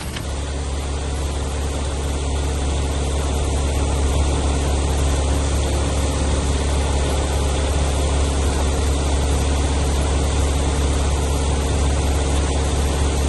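Diesel engine of a front-discharge ready-mix concrete truck running steadily close by, driving the drum while the concrete is discharged down the chute. It gets a little louder over the first couple of seconds, then holds even.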